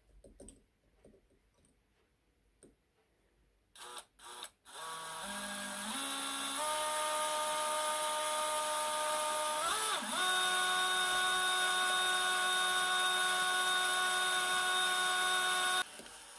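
DeWalt 18V XRP cordless drill boring a hole through a metal spoon. After a few light handling clicks, the trigger is blipped twice about four seconds in. The motor then runs with a steady whine that steps up in pitch, dips briefly about ten seconds in, picks up higher again, and stops shortly before the end.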